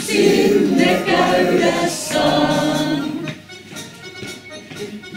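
Choir singing the closing phrase of a slow Finnish song; the singing ends about three seconds in and the sound drops to a faint room hush.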